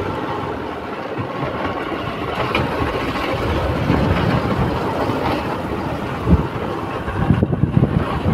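Motorcycle being ridden, its engine running under a steady rush of wind and road noise, with several sharp knocks near the end.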